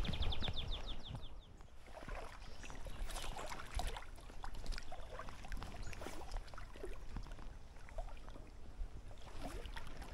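Creek water sloshing and lapping, with scattered small knocks and rustles of close handling. A rapid high trill of short falling notes sounds in the first second and a half.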